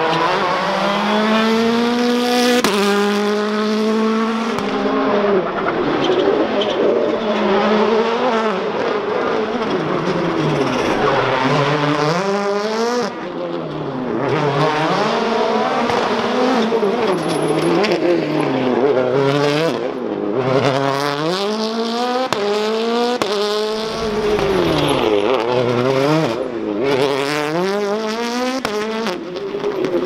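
Hyundai i20 WRC rally car's turbocharged 1.6-litre four-cylinder engine at full attack, its revs climbing and dropping again and again as it accelerates, shifts and brakes through tight corners.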